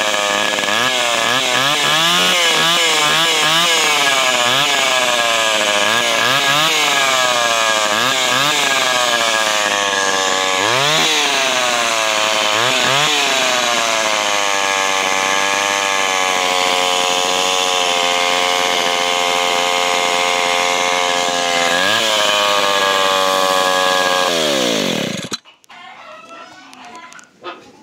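Echo CS-302 two-stroke chainsaw running, revved up and down over and over, then held at high revs for several seconds. About 25 seconds in it is shut off, its pitch falling quickly as the engine dies.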